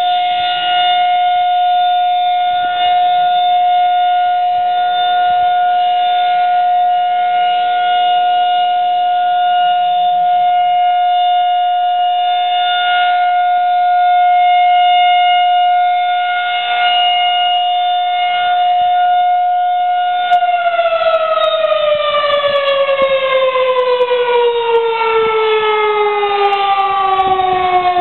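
Federal Signal 2001-SRN electromechanical rotating siren sounding its steady "Alert" tone, a loud held note that swells slightly as the horn rotates. About two-thirds of the way through the pitch begins falling steadily as the siren is shut off and winds down at the end of the test signal.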